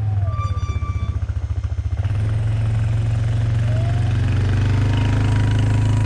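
Hitachi 35U mini excavator's diesel engine running loud and steady, pulsing unevenly for the first couple of seconds and then smoothing out. A faint whine falls in pitch in the first second and rises briefly near the middle.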